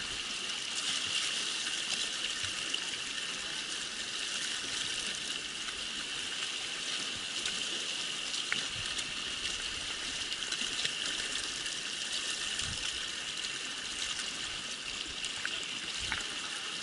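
Mountain stream running over rocks: a steady rush of flowing water close by.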